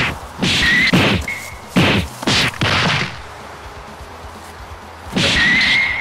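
Fight sound effects: a quick run of about five whooshing hits and swishes, then a lull, and near the end one more swish with a short high whistling tone.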